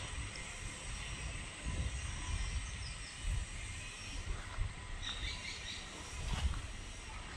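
Outdoor ambience: an uneven low rumble like wind on the microphone, with a few faint clicks and a couple of brief bird chirps about three and five seconds in.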